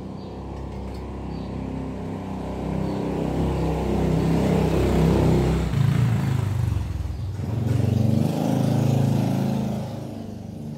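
A motor vehicle's engine passing close by, swelling twice and falling in pitch before fading near the end.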